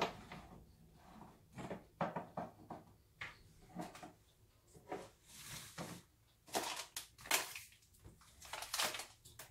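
Kitchen things being handled: a scattered run of knocks, taps and clatters, about two a second, some sharp, some with a brief rustle or scrape.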